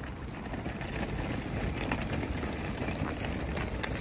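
A collapsible folding wagon's wheels rolling over rough asphalt: a steady low rumble with a few small clicks and rattles from the frame.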